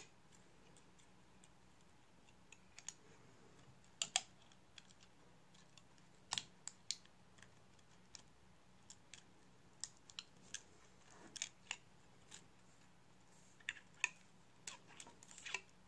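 Faint, irregular small clicks and taps from fingers handling the display flex cables and connector bracket of an opened iPhone 6s and pressing the connectors onto the logic board.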